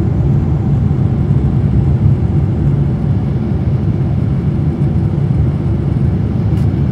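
Boeing 747 jet engines and rushing airflow heard inside the passenger cabin as a steady low rumble during the climb after takeoff.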